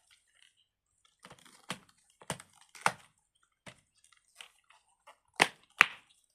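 Fidget toy being pressed and handled: a series of sharp, irregular pops and clicks, the loudest two close together near the end.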